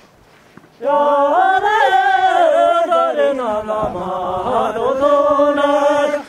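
Unaccompanied singing of a phrase of a traditional Ngari (western Tibetan) circle-dance song. It begins about a second in with a wavering melody and breaks off just before the end.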